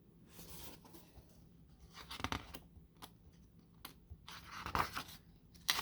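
A hardcover book being handled and its pages turned: several short paper rustles, with a light tap a little before the last ones.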